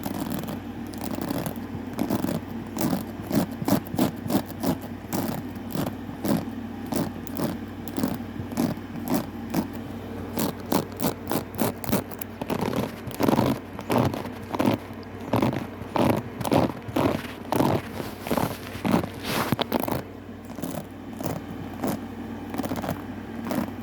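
Repeated scraping strokes of a comb or brush (a hair-grooming tool), about two to three a second, the sound that makes the cat gag.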